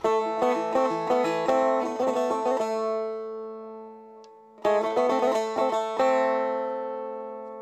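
Music on a plucked string instrument: a short run of plucked notes over a held low note, a pause while the notes ring away, a second run, then a last note left to ring out.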